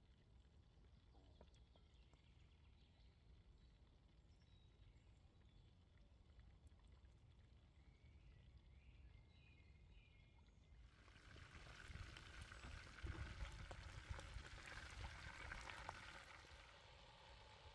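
Pork ribs deep-frying in hot oil in a cast-iron pot: a sizzling, bubbling hiss that starts suddenly about eleven seconds in and lasts about six seconds. Before it, only a faint low background rumble.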